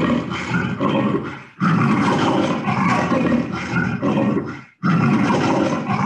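Loud leopard snarling sound effect: three long, rough snarls in a row, the second starting about a second and a half in and the third near five seconds in.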